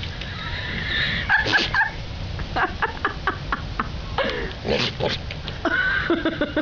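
A goat bleating in a few separate calls, the last one longer, over a steady low rumble, with a quick run of short clicks midway.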